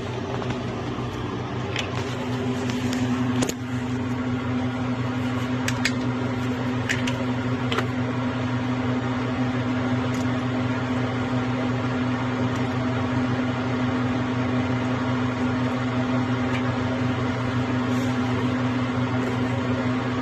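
A steady mechanical hum with one strong held tone, setting in about two seconds in, with a few faint clicks over it.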